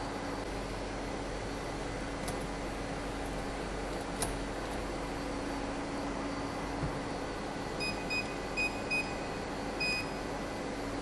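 Stainless-steel access-control keypad beeping as its keys are pressed: a quick run of short, high beeps about eight seconds in, then one longer beep, over a steady background hum.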